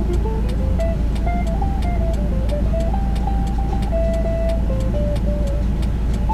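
Music with a simple stepping melody over a quick, steady ticking beat, above a low, steady rumble from the stationary car.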